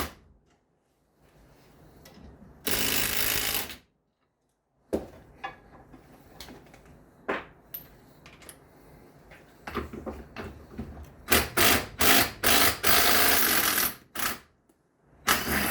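Power tool run in short bursts, driving coil spring compressors on a car's suspension strut. There is one steady run of about a second near the start, then after a pause a cluster of short bursts and a longer run of about two seconds.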